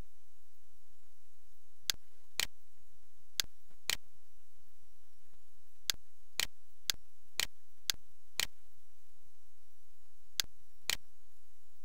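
Computer mouse button clicking: twelve sharp clicks in pairs about half a second apart, over a steady faint hiss.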